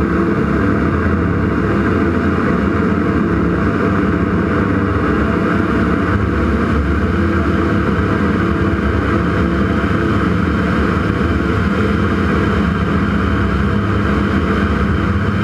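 Ag Cat crop-dusting biplane's engine and propeller running steadily in climbing flight just after takeoff, heard close up from the wing, with air rushing past.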